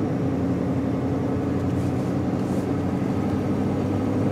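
Steady engine and road noise of a car driving slowly, heard from inside the cabin as an even low hum.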